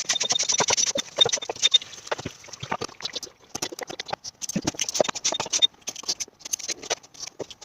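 Engine oil from a Ford 2.0 TDCi diesel being sucked up the dipstick tube into a vacuum oil extractor: a rapid, irregular gurgling and clicking as oil and air slurp through the tube.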